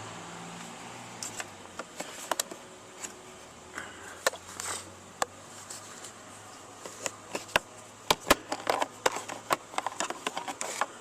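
Plastic glove box clips and trim being worked loose by hand and with a screwdriver: irregular sharp clicks and knocks, coming thick and fast in the last few seconds, over a faint steady low hum.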